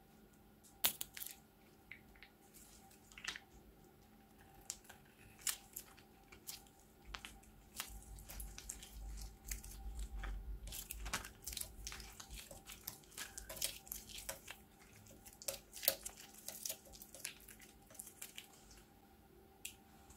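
Plastic piping bag crinkling in the hands while small beads are squeezed out of it onto slime, heard as scattered clicks and light crackles that grow busy in the middle.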